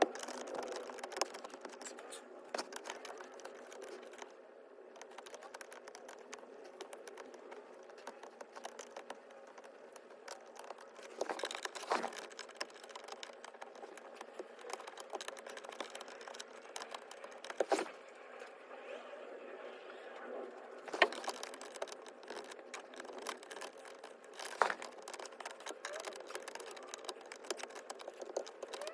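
Flathead screwdriver prodding and prying in the release holes behind a car's steering wheel to pop out the airbag retaining pins: scattered small clicks and scrapes, with a few sharper clicks spread through.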